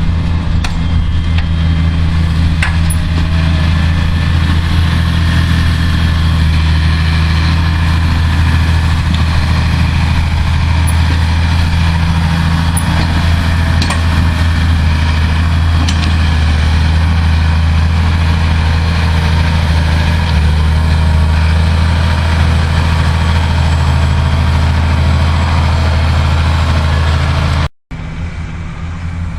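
Massey Ferguson 6490 tractor's six-cylinder diesel engine running steadily with a deep, even drone while pulling a four-furrow plough through wet ground. The sound cuts out for an instant near the end.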